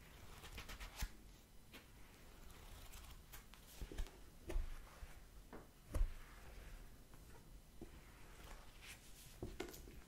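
Close-miked handling of a paperback book near a fuzzy microphone cover: scattered soft clicks and rustles, with a few low bumps, the loudest about six seconds in as the book is lifted near the microphone.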